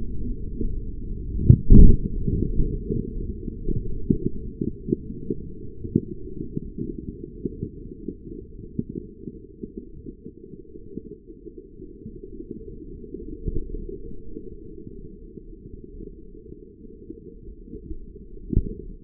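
Slow-motion replay with the sound slowed down: a BB striking a carbonated can and the can bursting, heard as one deep, muffled boom about two seconds in. A long run of low crackles follows and slowly dies away, and another low thump comes near the end.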